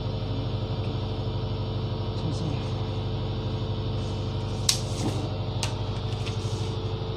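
Boat's engine running steadily, a low drone with a regular fast throb, heard from inside the vessel. A couple of sharp clicks stand out over it near the middle.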